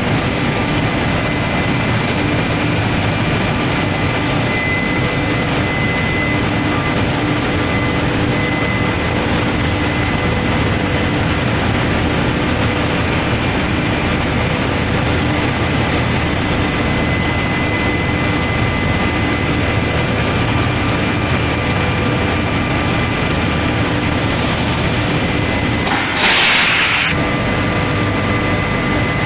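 Induction heating machine running on the shop floor: a steady noisy drone with several faint steady tones. Near the end there is a loud hiss lasting about a second.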